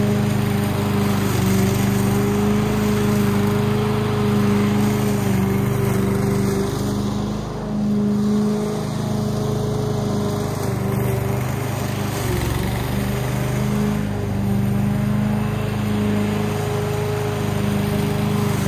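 Masport Contractor walk-behind petrol rotary mower running steadily while cutting long, overgrown grass, its engine note dipping briefly a few times.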